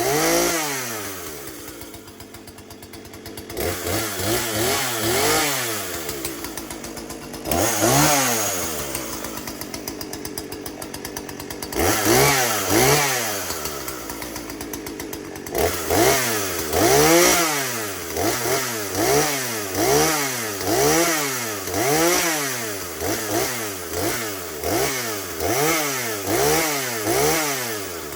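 Husqvarna 240 two-stroke chainsaw running just after a cold start, revved up and down over and over and dropping back toward idle between revs. In the second half the revs come steadily, about one a second.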